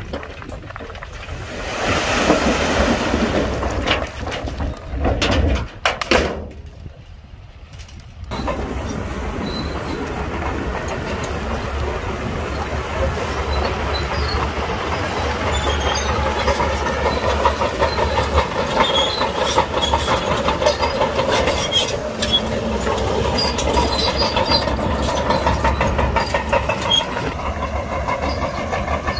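Shantui DH17C2 crawler bulldozer working under load as it pushes stone. Its diesel engine drones steadily with a rapid clatter from the steel tracks and occasional short high squeaks. The sound dips low for a couple of seconds about six seconds in, then runs on steadily.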